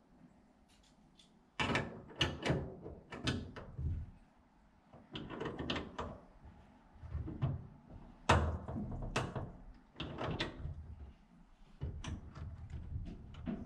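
Irregular metal clunks and knocks, some in quick clusters, as a wrench works on brass pipe fittings fixed to the steel hull.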